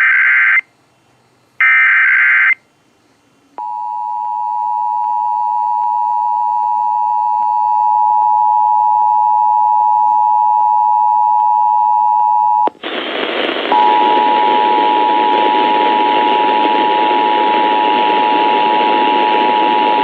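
Emergency Alert System test signal over FM radio. The first two seconds hold the last two of the buzzy digital SAME header bursts, each under a second long. About three and a half seconds in, the two-tone attention signal starts, fading up and then holding steady. Near thirteen seconds in it breaks off briefly and resumes under heavy hiss.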